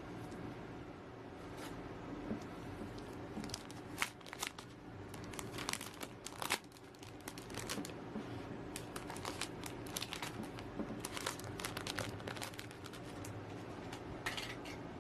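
Thin plastic protective sleeve crinkling and crackling in irregular bursts as an iPad is handled and slid back into it, over a faint steady low hum.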